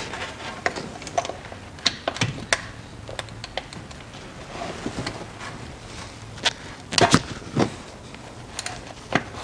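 Ratchet with an extended 12 mm socket clicking and clinking against metal as bolts are undone. It makes a run of irregular sharp clicks, with the loudest pair about seven seconds in.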